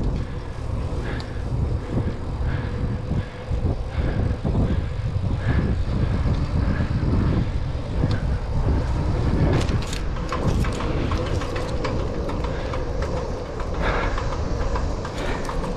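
Ride noise from a 700c single-speed bicycle in motion: a heavy, fluctuating wind rumble on the microphone, with tyre noise and scattered clicks and rattles from the bike rolling over pavement.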